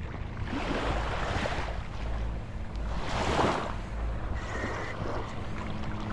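Ocean waves washing in on the shore, with two surges of rushing water, over wind rumbling on the microphone.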